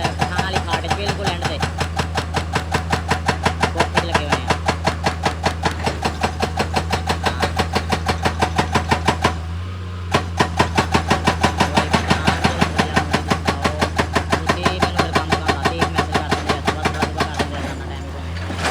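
Heavy machine's engine running under a rapid, even hammering of about five blows a second, as of a percussive rock drill or breaker working rock; the hammering stops for under a second about nine seconds in and then resumes.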